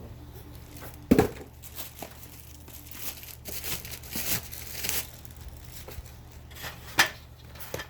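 Microphone packaging being handled and opened: crinkling and rustling. A sharp knock comes about a second in and another, the loudest, near the end.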